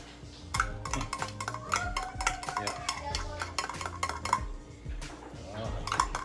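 Utensil scraping tuna out of a metal tin can over a stainless steel bowl: a quick run of metallic scrapes and clinks, dense for the first few seconds, with a few more near the end.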